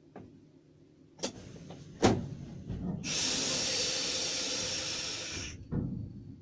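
Compressed air hissing for about two and a half seconds in the cab of a class 163 electric locomotive, then cutting off sharply. It is the air brake system venting. A few knocks and clicks come before it, and a thump follows.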